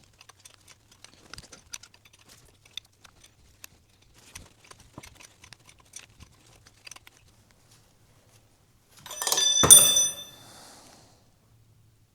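Small irregular metallic clicks and taps of a wrench being worked in short movements on exhaust manifold bolts, then about nine seconds in a loud metal clang that rings briefly, a tool or part striking metal.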